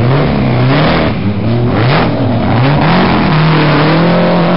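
Historic racing car engine revving, its pitch rising and falling several times, then holding steady near the end.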